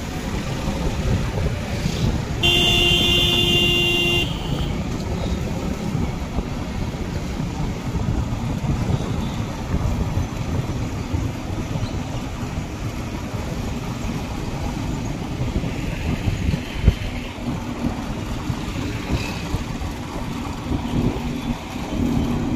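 Street traffic heard from a moving vehicle: a steady low road rumble, with one vehicle horn blast lasting about a second and a half, starting about two and a half seconds in. A single short knock comes later.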